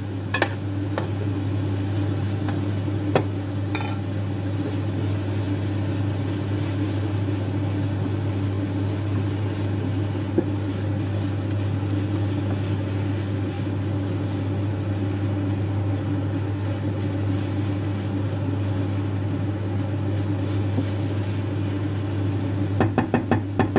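Steady low hum of a running kitchen appliance, with a few faint clicks in the first few seconds.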